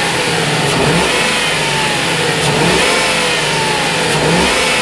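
2000 Ford Crown Victoria's 4.6-litre V8 engine being snapped by the throttle three times, each rev rising and then falling back toward idle. The engine has a misfire traced to cylinder three.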